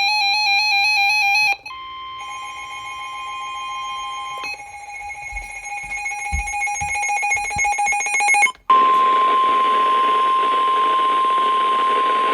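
Emergency Alert System / NOAA Weather Radio alert: the warbling digital header bursts end about a second and a half in, several steady alert tones follow, and near nine seconds in a single loud steady warning tone starts over radio hiss and holds past the end.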